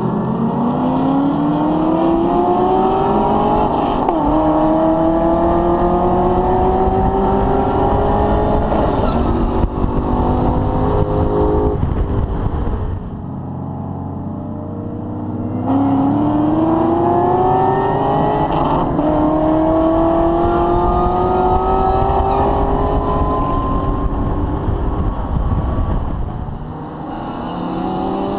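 Holden VF SV6 ute's 3.6-litre V6 under hard acceleration, its pitch climbing through each gear and dropping back at the upshifts. It eases off for a corner about 13 s in and again near the end, then pulls hard once more.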